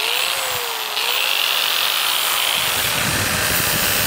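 Handheld rotary tool (Dremel) grinding metal off the housing of an oversized starter motor so it will clear the transmission plate. Its whine dips and recovers as it bites during the first second or so, then runs steadily with a grinding hiss.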